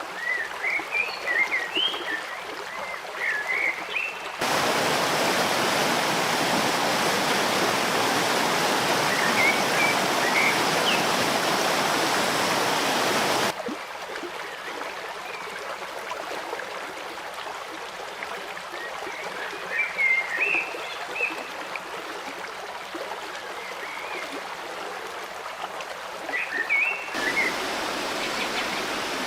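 A stream running steadily, with small birds chirping now and then. The rushing water is much louder for about nine seconds between two abrupt cuts, starting about four seconds in.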